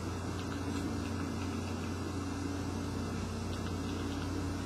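Steady low hum and hiss of background room noise, with a couple of faint ticks.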